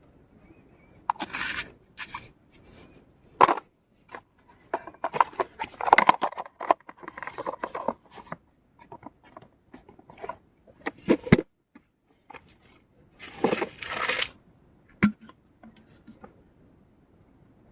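Irregular handling noises: short bursts of tearing, rustling and crunching with sharp clicks, loudest around the middle and again near the end.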